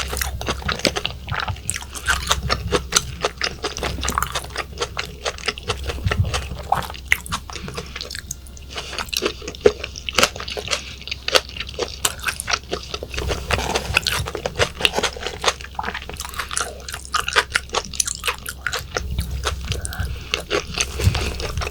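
Close-miked chewing of raw yellowtail sashimi: wet, sticky mouth sounds with many quick, irregular clicks and smacks.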